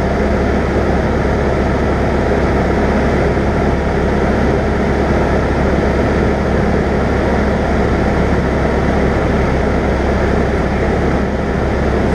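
Cessna 172's piston engine and propeller running steadily in level flight, heard from inside the cabin as an unchanging drone.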